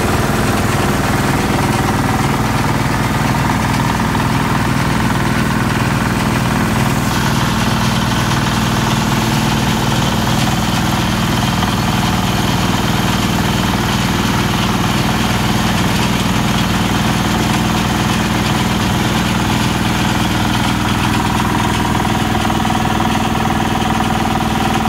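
Mobile palm oil screw press running steadily under load as it crushes loose palm fruits, with a constant mechanical hum from its drive.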